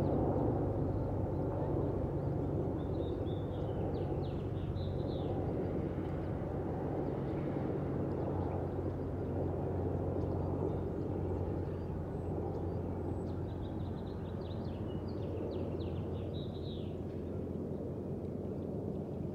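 Boeing 787-8 jet airliner's twin turbofan engines rumbling high overhead, slowly fading as it moves away. Small birds chirp briefly a few seconds in and again later on.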